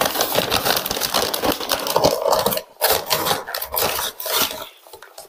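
Paper crinkling and rustling as hands rummage inside a McDonald's paper takeout bag, handling the paper-wrapped food, with a brief pause about halfway and the rustling dying away near the end.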